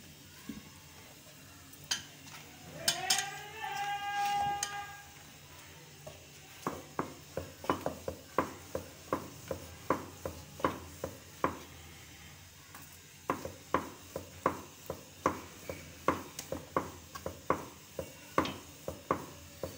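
Wooden rolling pin working paratha dough on a wooden board, knocking against the board in a steady run of taps, about two or three a second, with a short pause midway. About three seconds in, a short pitched tone rises and then holds for a second or so.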